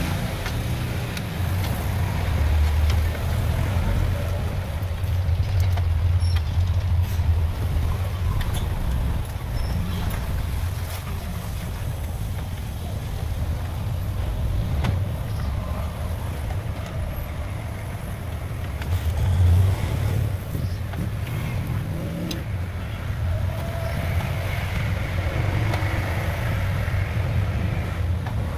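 Steady low mechanical rumble, like a vehicle engine running nearby, with occasional light clicks.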